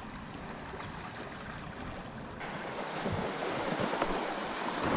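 Small waves washing against a rocky beach, getting louder about halfway through.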